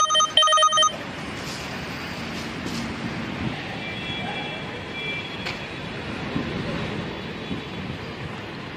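Two short, loud beeps at the start, then steady outdoor background noise of vehicles and site work with a few faint knocks.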